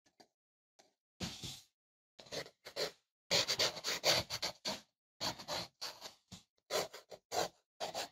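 Fineliner pen scratching across thick watercolour paper in quick, irregular sketching strokes, starting about a second in.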